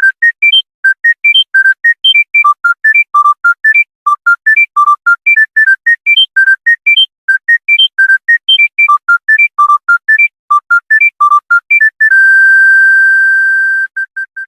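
Monophonic mobile phone ringtone: a quick melody of short, separate electronic beeps that repeats its phrase, then one long held beep and a few short ones near the end.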